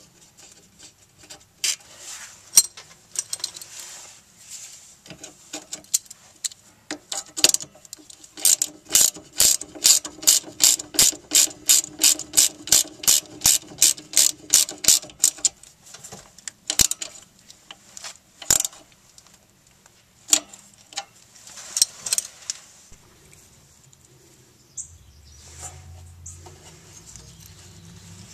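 Hand ratchet clicking steadily, about three to four clicks a second for some seven seconds, as a socket runs a nut onto a bracket of the new rear strut. Scattered metal clicks and taps of tool and nut handling come before and after.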